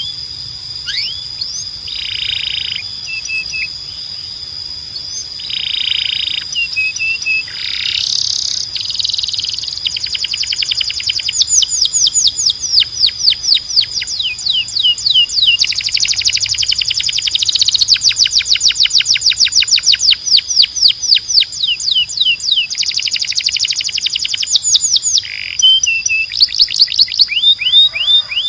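Canary singing a long, continuous song of high whistled notes. It moves from single sweeping notes and short buzzy chirps into fast trills of rapidly repeated notes that get louder after about ten seconds.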